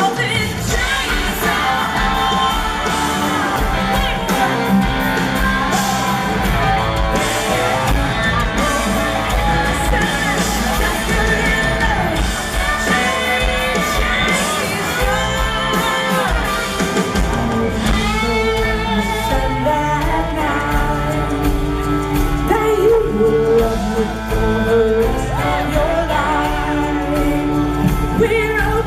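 Live country-rock band music with a lead vocal singing, amplified in a large hall.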